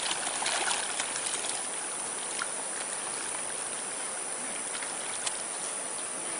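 Water splashing and sloshing as a crowd of large fish churns the surface around a wading person's legs and hands: a patter of small splashes in the first second and a half, then a steady wash of moving water.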